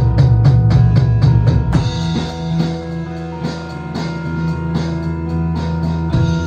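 Small rock band playing live in a room: drum kit, electric guitars and a low bass line. The drums hit hard and fast in the first two seconds, then settle into a lighter, steady beat under held guitar notes.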